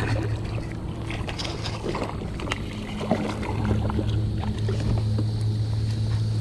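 Scattered knocks and clicks on a kayak while a hooked bass is fought alongside, over a steady low hum.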